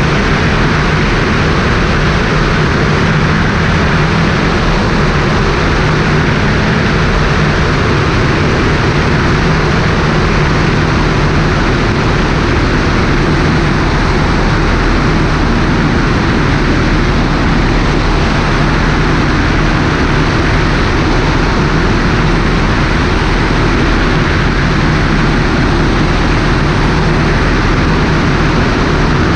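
Cessna 150's four-cylinder Continental O-200 engine and propeller droning steadily in flight, heard from a camera mounted outside under the wing, with heavy wind rush over it.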